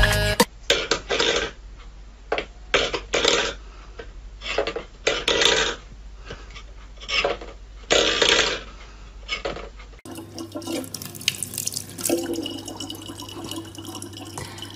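Stainless-steel bowl pushed by a cat's paw, scraping and clattering on a wooden floor in a string of short, irregular bursts. About ten seconds in, this gives way to a tap running a thin stream of water into a plastic bottle.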